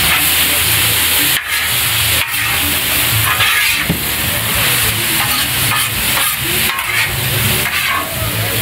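Chicken, onion, bell pepper and zucchini noodles sizzling on a hot steel Blackstone griddle as a metal spatula stirs, tosses and scrapes them across the flat top. A steady low rumble runs underneath.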